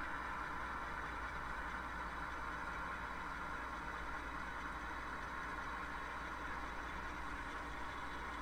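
Model railroad coal train running slowly: a steady hum and rolling of the hopper cars' wheels on the track, even and unbroken as the cars pass.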